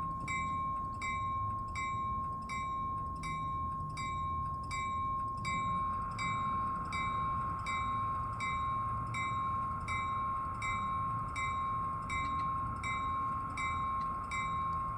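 A model train sound decoder, heard through the cab coach's small speaker, plays a bell-like chime that dings steadily about twice a second over a constant high whine. About five seconds in, a hiss joins it.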